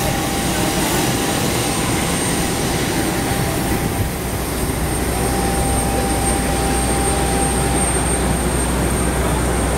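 Steady drone of a running aircraft turbine: a constant high whine over a low rumble, holding steady without rising or falling.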